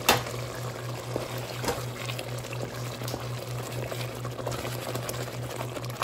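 Pot of beans and cow skin bubbling on the stove while a wooden spoon stirs it, knocking against the pot a few times, the loudest knock right at the start. A steady low hum runs underneath.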